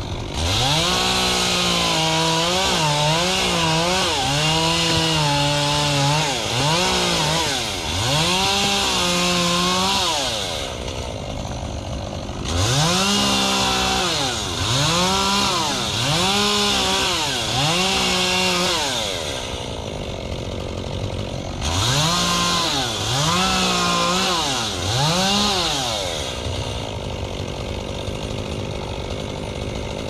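Petrol chainsaw revved hard in short bursts about a second each, in three runs of several revs. Between runs it drops back to a lower idle.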